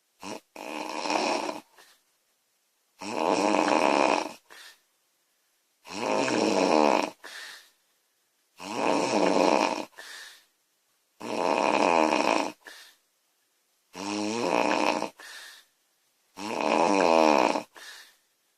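A woman snoring loudly in a steady rhythm: seven long snores, one about every two and a half to three seconds, each followed by a short, softer breath.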